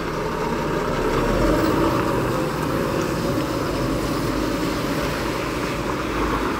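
Heavy diesel tractor-trailer engine running as the loaded container truck pulls slowly away, a steady low rumble.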